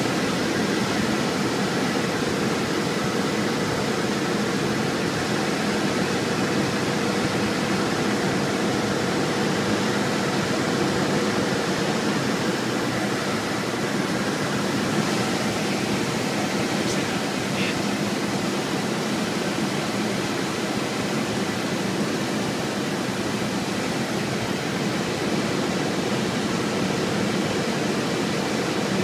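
Single-engine propeller airplane's engine and propeller droning steadily, heard from inside the cockpit with rushing airflow noise, during the descent on approach to landing.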